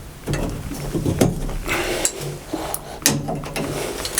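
Clicks and knocks of small combination-valve parts being handled and fitted back together by hand, with a few sharper knocks about one, two and three seconds in over a steady low hum.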